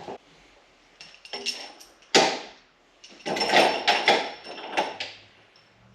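Workshop clatter as tools and items are moved about and an oil can is fetched: scattered knocks, a sharp knock about two seconds in, then a run of rattling and rummaging.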